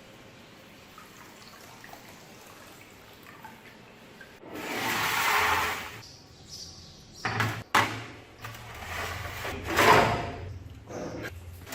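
Water gushing and splashing in several bursts, starting about four seconds in, after a quiet start.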